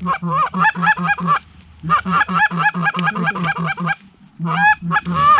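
Canada goose honking in quick, evenly spaced runs of about five honks a second, each a low note breaking up into a high one, with two short pauses.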